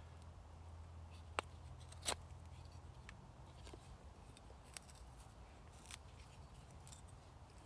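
A few faint, sharp clicks and snaps against a low steady rumble, the two loudest a little over a second and about two seconds in.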